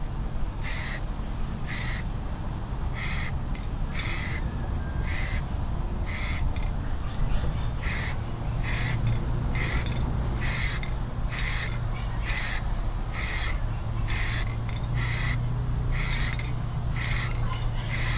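Short repeated hisses of black textured spray paint being sprayed on in quick bursts, about one a second, over a steady low hum that gets stronger about halfway through.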